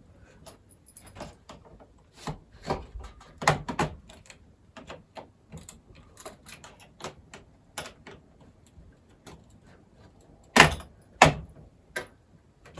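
Plastic clips of a Kogan Atlas L500 laptop's bottom cover clicking and snapping as the cover is pried off with a flathead screwdriver: a run of irregular clicks, with two loud snaps near the end.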